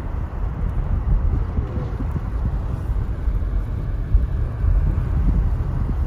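Car driving on a snow-covered road, heard from inside the cabin: a steady low rumble of tyres and engine.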